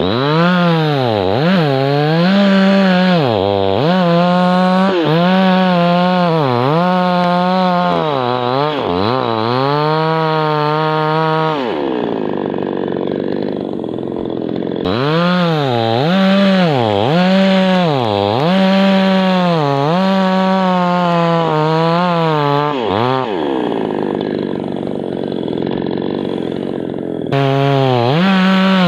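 Chainsaw bucking a birch trunk into firewood, its engine pitch dipping and recovering again and again as the chain bogs down in the wood. It eases off twice, about twelve seconds in and again about twenty-four seconds in, and revs sharply back up near the end.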